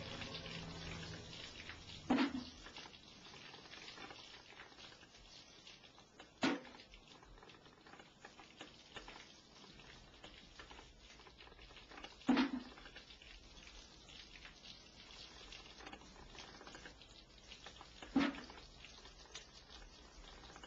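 Four sharp single drips of liquid, several seconds apart, each a short plink over a faint crackling hush. A low sound fades away in the first second or two.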